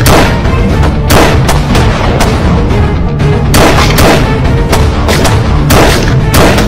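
Gunfire: single shots at irregular intervals, about ten of them, over dramatic background music.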